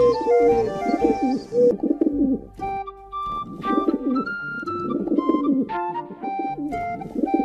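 Pigeons cooing: low, wavering coos that repeat and overlap, pausing briefly partway through. Background music with steady held notes plays underneath.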